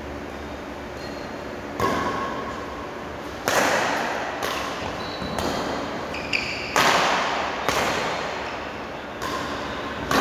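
Badminton rackets striking a shuttlecock in a doubles rally: about eight sharp hits, roughly one a second, each echoing in the hall, with short high squeaks between them.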